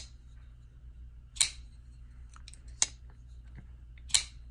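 A Purvis Blades Progeny folding knife, freshly reassembled, being worked open and shut: the blade snaps into place with sharp metal clicks, four of them about one every second and a half.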